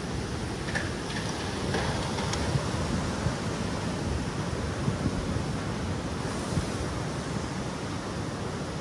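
Tsunami surge rushing ashore and through flooded streets: a steady rush of turbulent, churning seawater.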